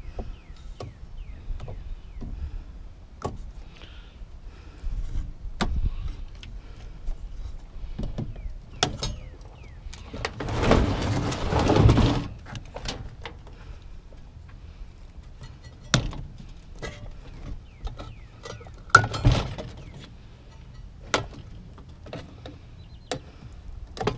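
Scattered clicks, clanks and knocks of a dishwasher being taken apart by hand to salvage its wiring. Near the middle there is a louder rasping, rattling noise lasting about two seconds, and a sharp knock comes several seconds later.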